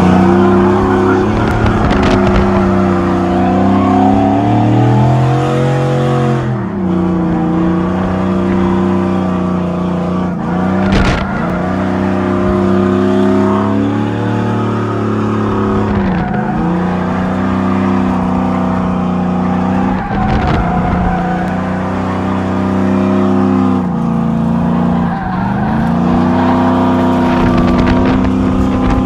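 Chevy 1500 pickup engine revving hard and held high while the truck spins, its welded rear differential locking both rear tires so they spin and skid on the pavement. The revs dip briefly and climb back every few seconds.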